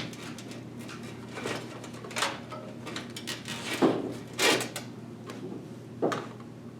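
A 24-pin power-supply cable being handled and fed through a PC case: rustling and scraping, with several sharp knocks against the case, about four in all, over a faint steady hum.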